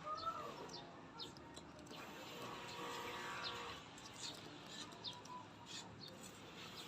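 Elongated tortoise biting and chewing melon: faint, irregular small wet clicks and crunches.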